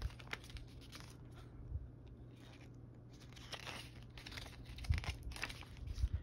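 Paper pages of a photo booklet being turned and handled, with scattered rustles and crinkles and a few soft knocks.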